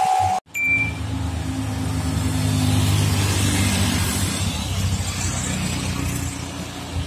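Road traffic: a box truck's diesel engine running with a low steady hum as it comes round a bend, with motorcycles passing close by, loudest around the middle. A music tone cuts off abruptly about half a second in.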